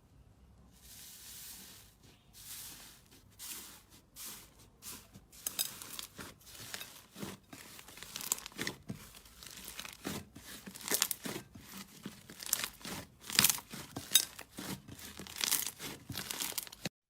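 Slime being squeezed and pressed by hand, giving short crackling, popping strokes that come faster and louder as it goes on.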